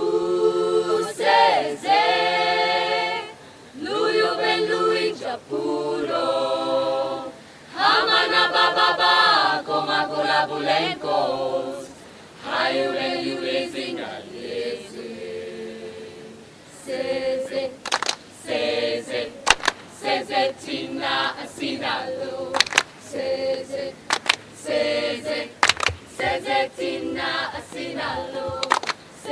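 A small group of women singing a cappella. From about halfway, sharp hand claps join the singing.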